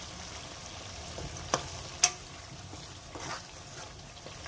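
Onion, garlic and ginger paste sizzling steadily in hot oil in a pot as a slotted spatula stirs it. There are two sharp clicks about a second and a half and two seconds in, and a few lighter ticks a little later.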